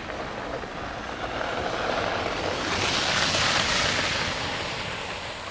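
A car driving past on a slushy, snow-covered road: the tyre hiss swells, is loudest about three to four seconds in, then fades.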